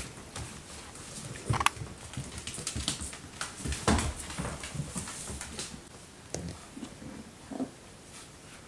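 Four-week-old puppies playing with their mother dog: a few brief squeaks and yips over scuffling and mouthing noises.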